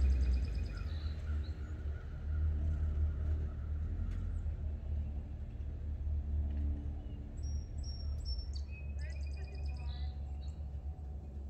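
Hummer H3 Alpha's 5.3-litre V8 through a Magnaflow cat-back exhaust, receding after its drive-by and fading to a low, steady drone. Birds chirp in short rapid trills at the start and again near the end.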